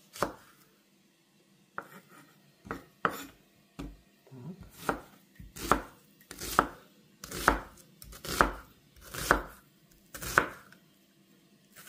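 Chef's knife slicing through an onion and knocking on a wooden cutting board. After a short pause near the start, the cuts come about once a second in a steady rhythm.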